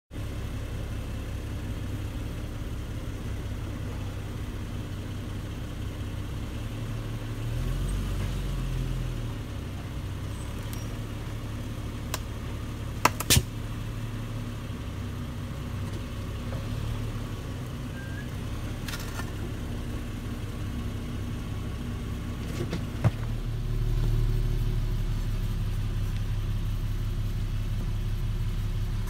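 Car engine idling with a steady low rumble. The rumble swells about seven seconds in and again for the last few seconds, and a few sharp clicks come in the middle.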